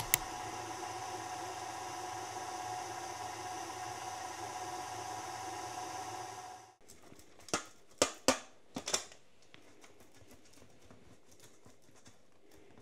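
Electric stand mixer running steadily as it kneads shortcrust dough, stopping abruptly about two-thirds of the way through. A few sharp knocks and clicks follow soon after.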